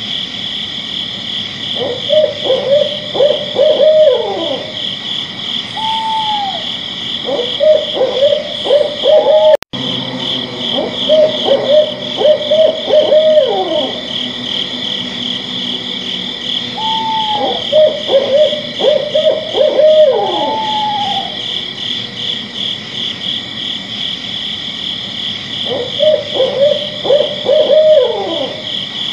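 Night nature ambience: an owl hooting in about five bouts of quick repeated notes that slur downward, with a few separate arched calls between them. Under it runs a steady, pulsing chorus of crickets.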